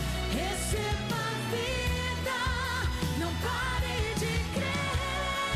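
A woman singing a Portuguese-language gospel pop song over a backing track with a steady bass line, holding long wavering notes between sung lines.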